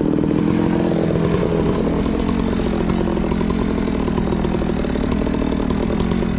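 Gasoline chainsaw running at speed, its pitch wavering up and down as it works.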